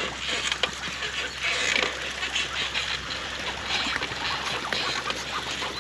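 Riding noise from a loaded touring bicycle: a steady rush of tyres and wind on the microphone, with many small crackles as of grit under the tyres.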